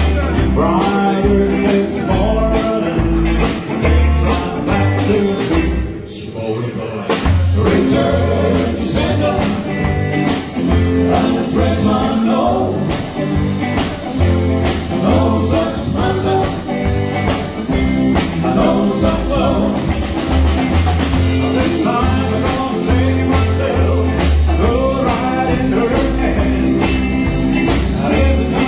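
A band playing fifties-style rock and roll, with guitar, bass and drums. The music briefly drops away about six seconds in, then comes back in.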